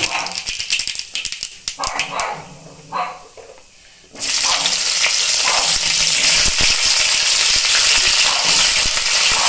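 Mustard seeds spluttering and crackling in hot oil with dried red chilli and bay leaves. About four seconds in, a sudden loud sizzle starts as cauliflower florets go into the hot oil and begin frying. A dog barks a few times in the first half.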